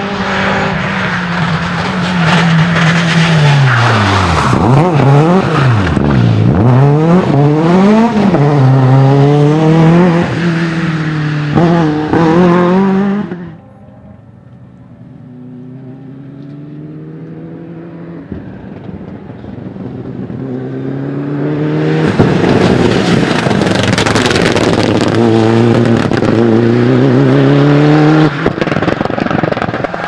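Rally car engines at hard throttle on a tarmac stage, revving high with quick lifts and gear changes that make the pitch swoop up and down again and again. About thirteen seconds in the sound drops suddenly to a distant car. That car grows steadily louder until another loud engine takes over for the last part.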